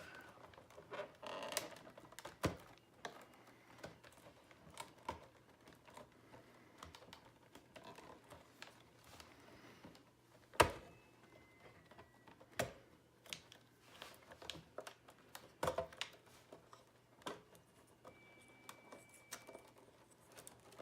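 Plastic wire-harness connectors being unplugged one after another from a pachinko machine's circuit board: irregular small clicks and snaps, one sharper snap about ten seconds in.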